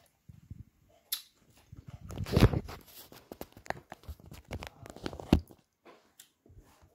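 Handling noise of the phone that is recording: a hand grabbing and moving it, with rubbing and a run of knocks and clicks, loudest about two and a half seconds in, with another sharp knock a little after five seconds.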